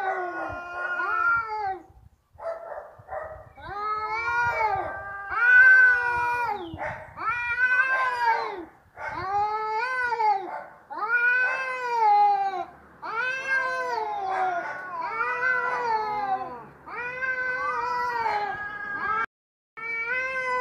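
Domestic cat yowling over and over, about a dozen drawn-out calls each rising and then falling in pitch: the angry caterwaul of a cat squaring up to fight.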